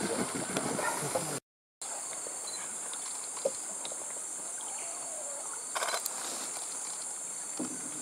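Rainforest background: a steady high-pitched hiss with a few faint brief sounds. The audio cuts out completely for a moment about a second and a half in.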